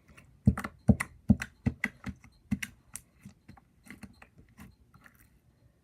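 Slime being squeezed and worked in the hands, giving a quick irregular run of wet clicks and pops that are loudest for the first few seconds and then fade.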